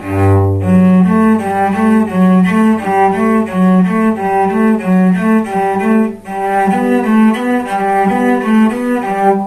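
Cello playing a quick run of bowed notes, with a low open string ringing underneath as a pitch reference for checking intonation. There is a short break about six seconds in.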